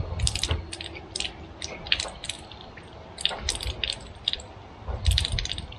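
Irregular light clicks and clatter of small hard parts being handled, in a few short clusters, with soft low thumps among them.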